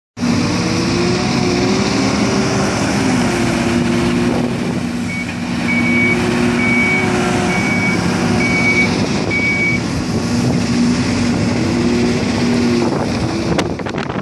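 Diesel engine of heavy earthmoving machinery running, its pitch rising and falling as it works under load. In the middle a reversing alarm beeps six times, about once a second.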